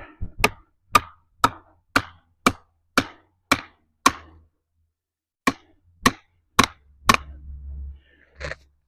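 A wedge being hammered into a tree's saw cut: sharp blows about two a second, eight of them, a pause, then four more.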